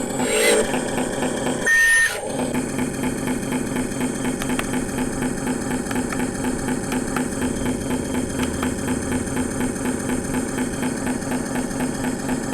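Huina RC truck running steadily with an evenly pulsing mechanical drone, and a brief louder burst about two seconds in.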